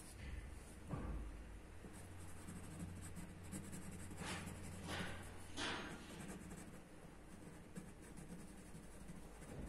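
Graphite pencil scratching on paper in short shading strokes, three of them louder around the middle, with a soft knock about a second in.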